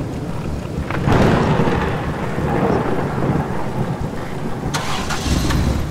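Cartoon thunderstorm sound effect: steady rain with a heavy roll of thunder breaking about a second in, and another burst of thunder near the end.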